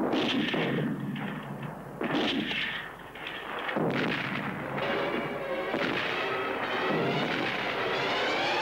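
Artillery shells exploding in succession: sharp bursts about two seconds apart, each dying away, then a continuous din of firing and explosions.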